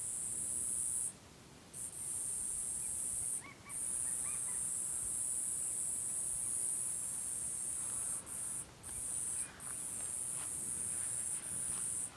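A high-pitched, steady insect buzz that drops out briefly a few times and cuts off suddenly at the end. A few faint bird chirps come in around the middle.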